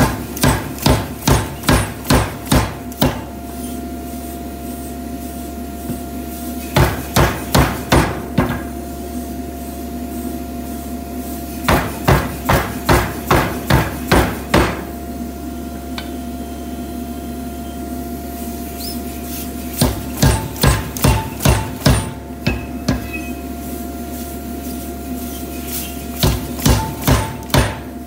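Power hammer forging a red-hot steel bar, striking in five bursts of rapid blows, about three a second, each burst lasting two to three seconds. A steady machine hum runs between the bursts.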